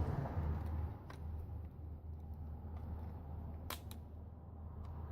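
Plastic clips of a ZTE Z828 phone's back case snapping loose as the case is pried off, with one sharp click about three and a half seconds in and a few fainter clicks over light handling noise. A low steady hum sits underneath.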